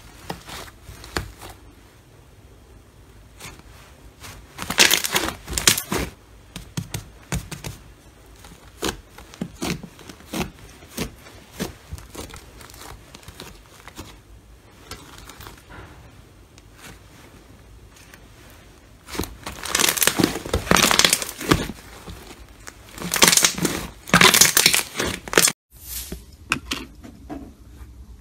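Thick green slime being pressed and stretched by hand, making dense crackling and popping clicks as air pockets in it are squeezed. The crackling comes in loud bursts about five seconds in and again twice around twenty to twenty-five seconds in, then goes quiet near the end.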